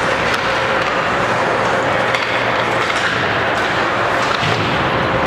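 Ice hockey play in an indoor rink: skates scraping the ice and a few sharp stick and puck clacks over a steady arena din with a faint steady hum.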